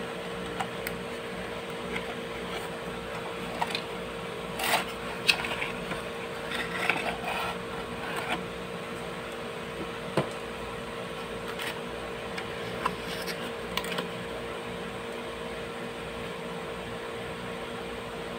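Cardboard packaging being handled: a box flap opened and the inner tray slid out, giving scattered sharp clicks and papery rustling, busiest in the first half, over a steady background hum.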